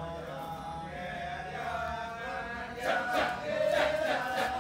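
Music with chant-like sung vocals holding long notes, growing louder about three seconds in with a few sharp accents.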